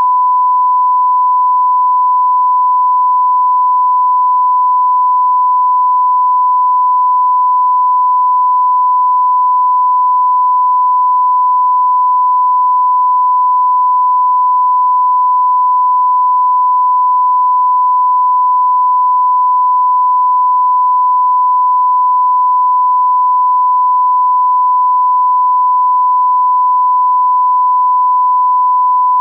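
Continuous 1 kHz sine-wave reference tone, a single steady pitch at constant level, the line-up tone that accompanies a PM5644 test card.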